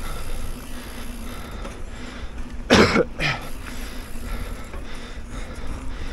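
Mountain bike rolling over dirt with a steady rumble. About three seconds in, the rider gives a short cough, twice in quick succession.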